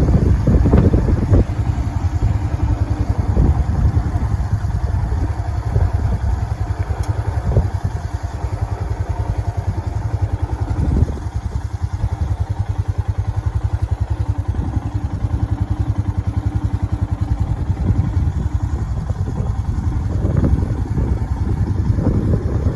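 Motorcycle engine running steadily while being ridden, a fast stream of low exhaust pulses, with a short dip in level about eleven seconds in.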